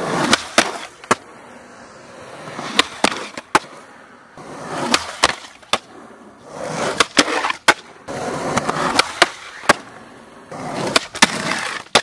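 Skateboard wheels rolling over rough asphalt in several passes. Several sharp clacks of the board come through, from tricks popped and landed at a cinder-block ledge.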